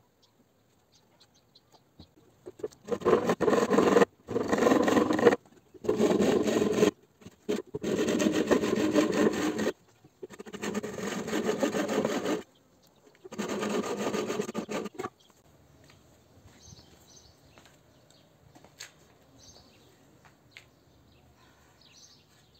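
Hand saw cutting through a wooden plank in six spells of quick back-and-forth strokes, from about three seconds in until about fifteen seconds, when it stops.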